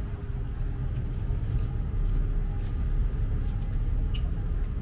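Tour boat under way on the river: a steady low rumble of engine and water noise, with a few light ticks.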